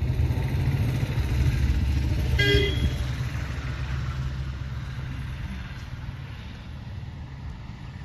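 A steady low outdoor rumble that slowly fades, with a short horn toot about two and a half seconds in.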